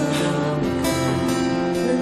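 Soft instrumental worship music with a guitar playing sustained chords and picked notes.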